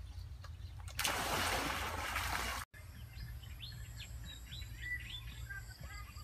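Water poured from a clay pot splashing into a shallow pool for about a second and a half. After a short break, small birds chirp repeatedly over a steady low rumble.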